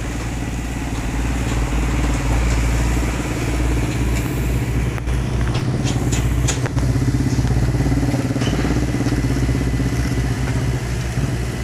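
Asphalt paver's diesel engine running steadily at a constant speed. A few short clicks and scrapes about halfway through, from rakes working the fresh asphalt.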